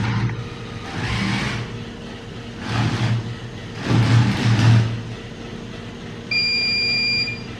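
Small DC gear motors of a Bluetooth-controlled robot car whirring in about four short bursts as it drives in spurts. Near the end an electronic buzzer sounds one steady, high beep about a second long, the robot's signal that its IR sensor has detected an object.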